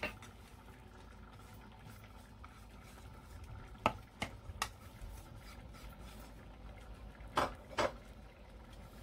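A few light knocks and scrapes against a mixing bowl as ground split peas are scraped into pholourie flour mix and worked in by hand; two knocks near the end are the loudest.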